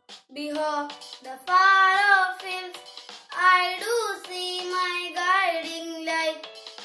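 A boy singing solo in phrases of long, wavering held notes.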